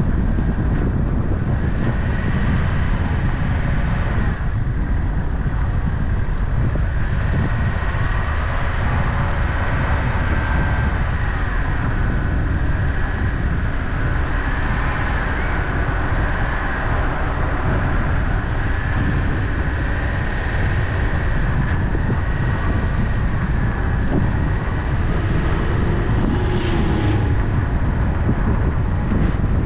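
Car driving on an open road: a steady low rumble of tyres and engine with wind noise. A short hiss comes near the end.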